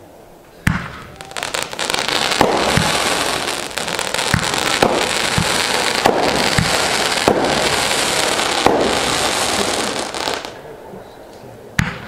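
A consumer 500-gram firework cake firing: a sharp bang about half a second in, then a dense continuous crackle and hiss with a shot about every half second to second. It dies away around ten seconds in, and one more sharp bang comes just before the end.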